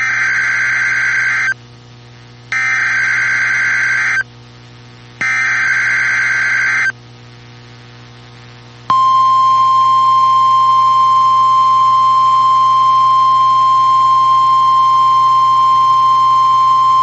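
Emergency Alert System SAME header: three bursts of shrill warbling data tones, each about a second and a half long with a second's gap between them. About 9 s in comes a single steady NOAA Weather Radio warning alarm tone that holds on unbroken, the signal that an emergency weather message follows.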